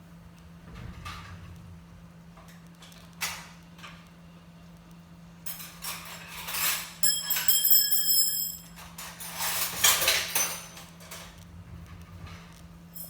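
Kitchen handling noise: knocks and scraping of cookware, then a busier stretch of clatter with a briefly ringing metallic tone about halfway through, over a steady low hum.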